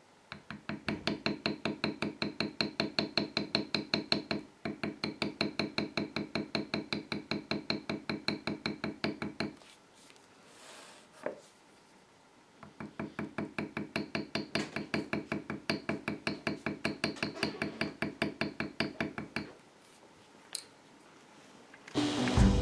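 Metal leather beveler struck by a mallet in rapid, even taps, several a second, stamping vegetable-tanned leather laid on a granite slab. Two long runs of strikes with a pause of about three seconds between them.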